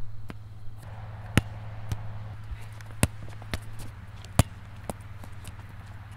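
A ball being dribbled by hand on an asphalt court: a string of sharp, irregularly spaced bounces, three of them louder than the rest, over a steady low hum.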